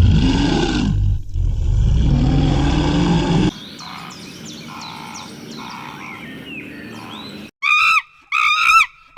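Animal calls: a loud, deep call with a short break for the first three seconds or so, then a quieter stretch with faint chirps, then a quick run of short, high calls near the end.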